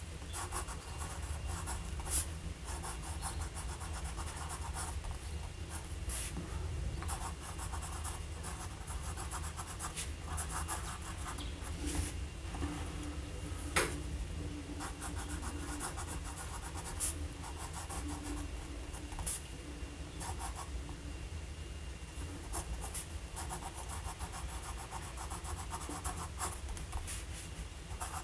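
Parker 61 fountain pen's medium steel nib scratching across paper as cursive words are written, in runs of strokes with short pauses between words and a few light clicks.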